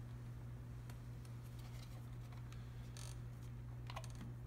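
Quiet room tone with a steady low hum. About three seconds in there is a faint rustle, and near the end a light click, as a hand picks up a small plastic KVM switch.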